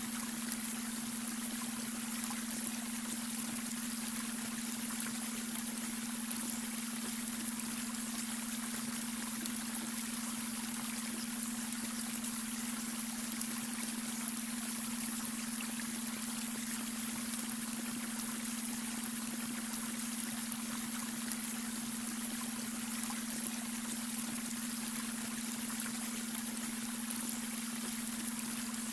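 Babbling brook: water rushing and trickling in an even, unbroken flow. A steady low hum, the added beta-wave brainwave tone, runs under it without change.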